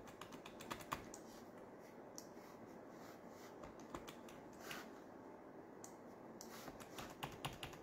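Faint, scattered clicks of a computer mouse in a quiet room, with a quick run of clicks near the end.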